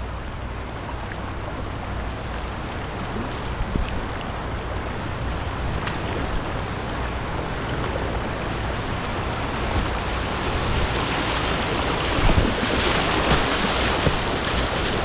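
Rushing river water splashing around a kayak's bow as it runs a choppy riffle, with wind rumbling on the microphone. The splashing grows louder near the end as the bow pushes through rougher water.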